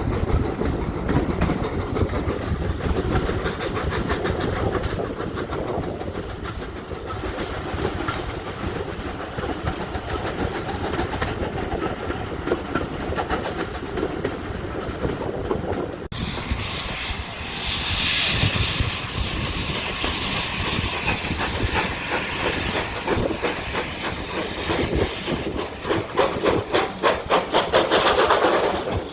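Steam locomotive working on the line. First comes a low rumble of the engine and train running, then a loud steam hiss and a regular beat of exhaust chuffs that grows stronger near the end.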